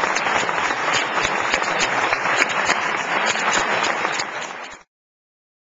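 Audience applauding, a dense clatter of many hands clapping that fades in its last half second and cuts off suddenly about five seconds in.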